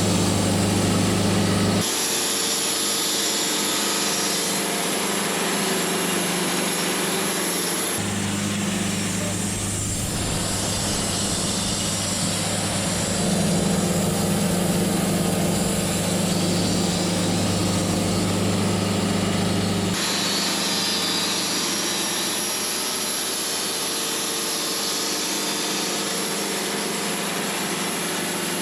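Portable sawmill's engine running and its saw cutting wood, a steady mechanical hum whose character changes abruptly about 2, 8 and 20 seconds in.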